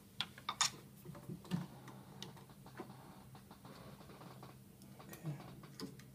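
Scattered light clicks and taps from hands handling tools and the needle and presser-foot parts of a vintage Singer 45k89 industrial leather sewing machine. Most of the clicks fall in the first second and a half; after that they are fainter and further apart.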